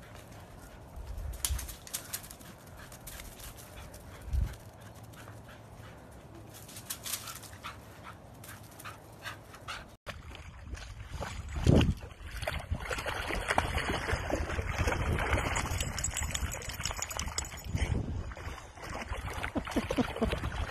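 A dog whimpering and yipping, then, from about halfway through, the louder splashing of a dog wading through shallow water.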